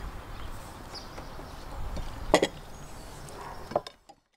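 Open-air ambience with a low rumble, and two sharp clicks of tableware at the table, the louder about two and a half seconds in, the other near the end.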